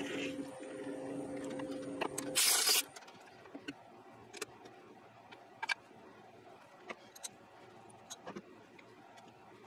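Metal lathe running with a steady hum, then a brief loud rushing noise as it stops about two and a half seconds in. After that come a few light metallic clicks and clinks of handling at the machine.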